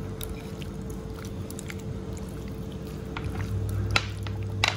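Wet squishing of raw fish pieces being kneaded by hand with grated ginger, garlic and lime juice in a glass bowl: many small squelches, with two sharper clicks near the end.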